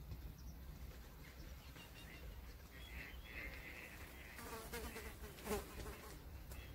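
Faint outdoor ambience: a low steady rumble, with a faint pulsing buzz from about three to four seconds in and a short louder sound about five and a half seconds in.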